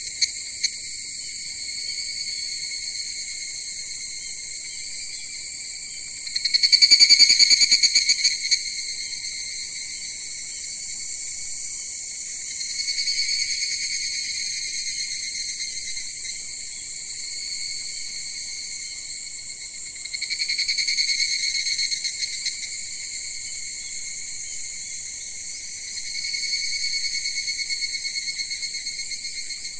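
Chorus of insects trilling steadily and high-pitched, with a louder pulsing call that swells and fades four times, roughly every six to eight seconds.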